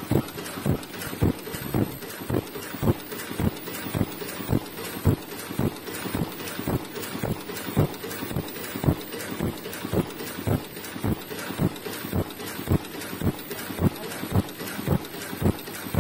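Mask earloop welding machine running in automatic mode, its mechanism clacking in a steady rhythm of about three knocks a second.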